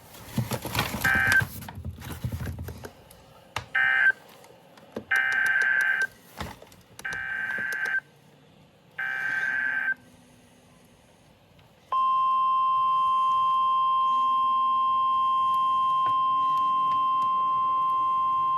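NOAA Weather Radio Emergency Alert System SAME header: screechy bursts of digital data tones, the last three about a second each with short gaps between them. About twelve seconds in, the steady 1050 Hz weather radio warning alarm tone starts and holds, signalling that a warning follows. There is a noisy rumble in the first few seconds.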